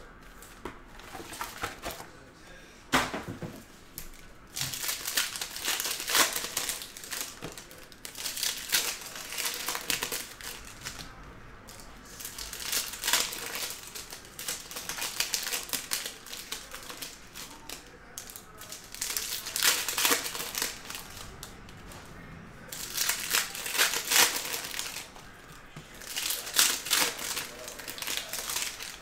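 Foil wrappers of Donruss Optic football card packs crinkling in repeated bursts as the packs are handled and torn open, with short quieter pauses between.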